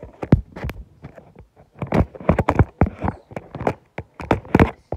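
Handling noise from a phone being picked up and turned around: fingers rubbing and knocking on the body right over its microphone, an irregular run of loud thumps and scrapes.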